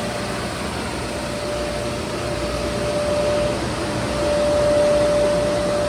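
FMC M10000 air-conditioning unit running steadily: a constant rush of fan and blown air with a thin, steady whine over it that drops out briefly once.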